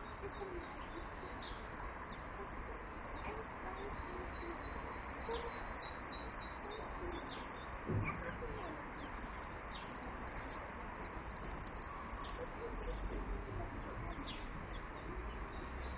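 Ducklings peeping in long runs of rapid, high chirps, over a steady background hum. There is a soft bump about eight seconds in.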